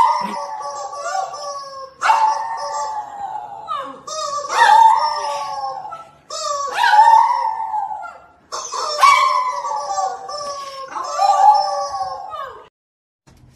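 A dog howling: about six long howls in a row, each lasting around two seconds, stopping shortly before the end.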